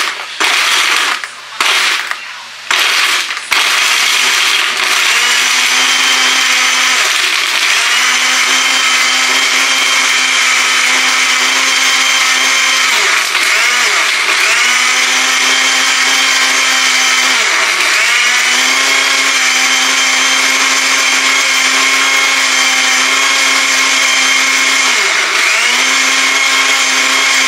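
Countertop electric blender pulsed in four short bursts, then run continuously, blending a cucumber-ginger shake with ice. The motor's pitch sags briefly a few times as it runs.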